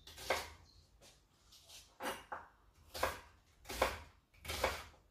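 Kitchen knife chopping red onion on a wooden chopping board: about six slow, unevenly spaced strokes, each a short knock of the blade through the onion onto the board.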